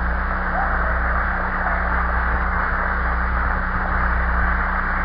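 Audience applause, a steady wash of clapping heard through an old, lo-fi recording with a low mains hum under it.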